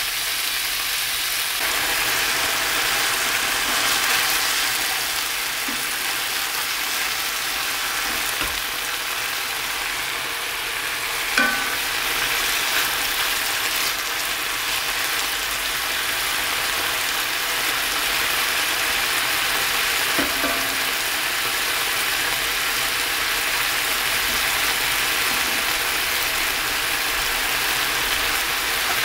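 Cubes of skirt steak searing in hot oil in a frying pan: a steady sizzle as the beef browns. A slotted spatula turns the meat, with a couple of brief knocks against the pan about a third and two-thirds of the way through.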